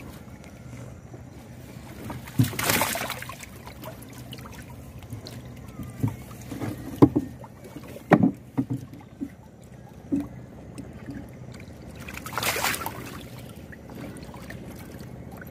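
Water splashing twice in a flooded wooden boat hold, about two seconds in and again near the end, with a few dull knocks in between.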